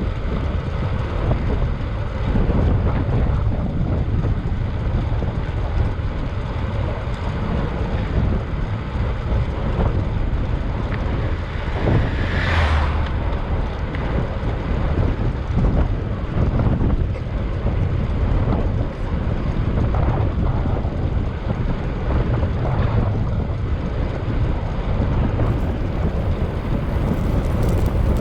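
Wind rushing over the microphone of a moving bicycle, a steady low buffeting roar with scattered small knocks. About twelve seconds in a higher hiss swells briefly and fades.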